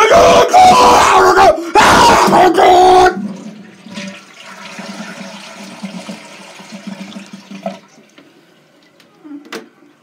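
Toilet flushing: a steady rush of water that starts about three seconds in and cuts off about eight seconds in.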